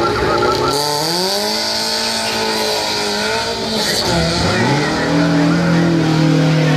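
BMW M3 E30's four-cylinder engine revving hard as the race car launches from the start line and accelerates away. The revs climb steeply about a second in and hold high, then drop at a gear change about four seconds in and climb again.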